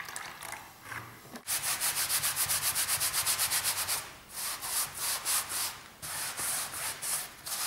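Wide flat paintbrush scrubbed rapidly back and forth over a stretched canvas, working in a coat of dissolved animal glue. The strokes start suddenly about a second and a half in, at about six a second, in three runs with short pauses between.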